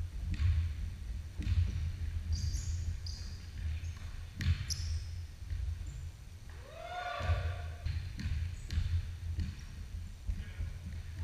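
Basketball bouncing on a hardwood gym floor with players' running feet and short high squeaks, in a large echoing gym. A voice calls out about seven seconds in.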